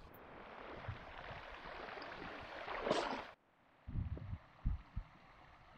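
River water rushing steadily, swelling briefly about three seconds in, then cutting off abruptly to a fainter hiss broken by a few dull low thumps.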